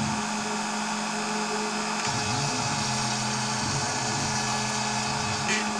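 CNC router spindle running steadily while cutting foam board, with a lower whir that shifts in pitch as the machine's gantry moves.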